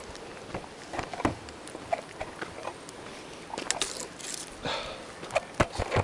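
Footsteps crunching on a gravel and dirt track as someone walks uphill: irregular crunches that come quicker in the second half, with breathing close to the microphone.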